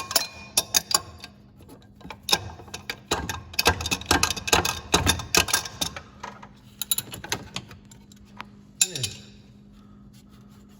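Hand tools clicking and knocking against metal in quick, irregular runs while the engine-driven fan is tightened onto the water pump hub, busy for the first six seconds and then sparser, over a faint steady hum.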